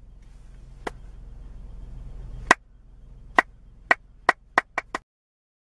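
Eight sharp clicks over a low hum. The first is faint, and they come closer and closer together before the sound cuts off abruptly.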